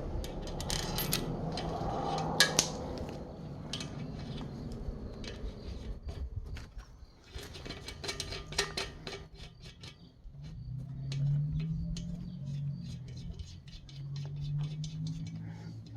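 Metal hand tools clicking and clinking against a Caterpillar C15 diesel cylinder head while an injector sleeve puller is worked, with many short irregular metallic taps.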